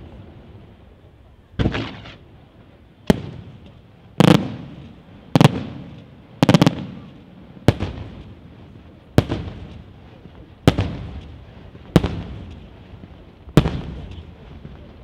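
Aerial firework shells bursting one after another: about ten sharp bangs roughly every second and a half, each followed by a rolling echo that dies away.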